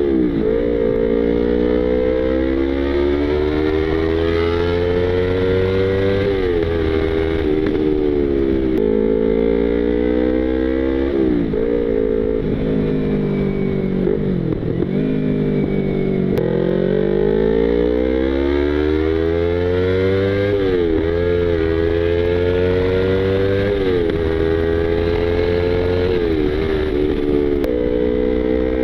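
Yamaha YZF-R25's parallel-twin engine riding through traffic: its pitch climbs steadily in each gear and drops sharply at each shift, about a dozen times, with a few deeper dips where the rider eases off and pulls away again.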